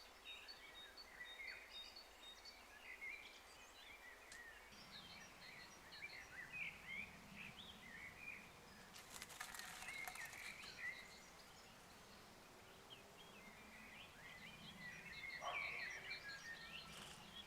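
Small songbirds chirping faintly outdoors, with many short scattered calls. A brief rustling noise comes about halfway through.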